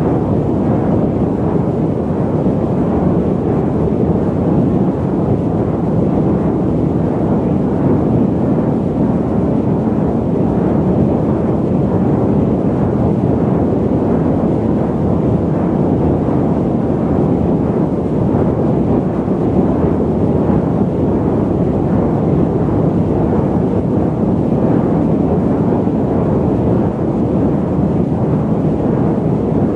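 Steady airliner cabin noise in flight, a deep even rush of engine and air noise with no tones standing out.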